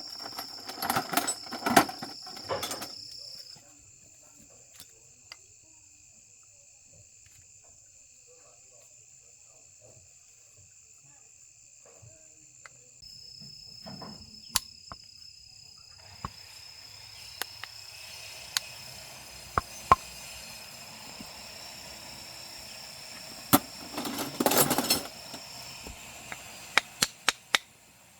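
Insects chirring: steady thin high-pitched tones, layered and dropping in and out. Bursts of clattering knocks come at the start and again about 24 seconds in, with scattered sharp clicks between.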